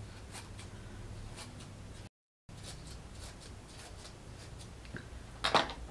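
Scissors snipping into the paper of a homemade feather, quiet scattered snips and paper rustles. There is a brief gap of dead silence about two seconds in and a short louder noise near the end.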